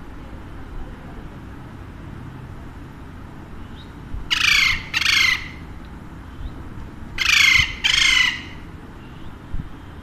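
Alexandrine parakeet giving four loud, harsh squawks in two pairs, about four seconds in and again about seven seconds in, each call sliding down in pitch.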